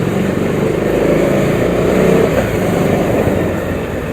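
Motorcycle engine running on the move, recorded close by an action camera's microphone, its note swelling a little toward the middle and then easing.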